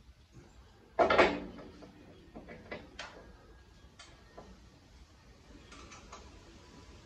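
Metal hand tools and hardware clanking on a car's front suspension as a wrench is worked at the lower ball joint: one loud clatter about a second in, then a few light clicks and taps.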